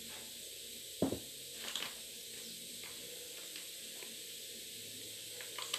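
A spoon stirring flour into a soft margarine dough in a bowl. There is one sharp knock about a second in, then soft scrapes and a few light clicks over a steady hiss.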